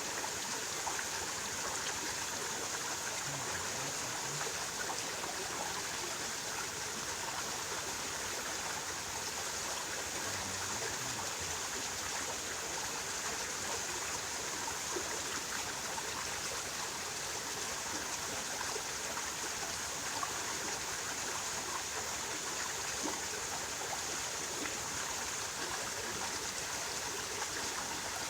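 Flowing water of a stream or small river, a steady rushing hiss that does not change.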